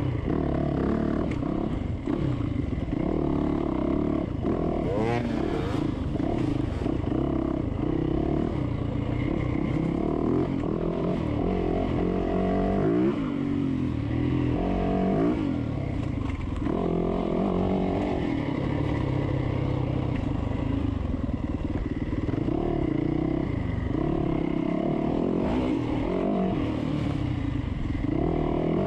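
Dirt bike engine running hard under a rider, its pitch rising and falling as the throttle is opened and closed over and over.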